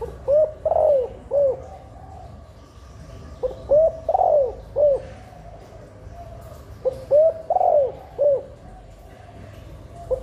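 Caged hen spotted dove cooing: three phrases of about four notes each, each note rising and falling in pitch, repeated roughly every three and a half seconds, with a fourth phrase beginning at the end.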